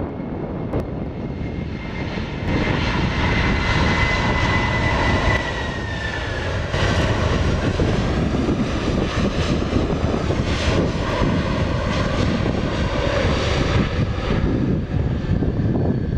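Airbus A300 cargo jet's turbofan engines running as the plane rolls, a high whine over a low rumble. The whine dips in pitch about six seconds in, and the engine sound grows louder about two and a half seconds in and again about seven seconds in.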